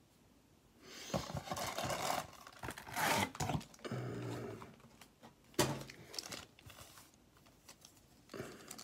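Foil wrappers of Upper Deck hockey card packs crinkling and rustling in several irregular bursts as the packs are taken out of the cardboard blaster box and handled. There is one sharp tap a little past the middle.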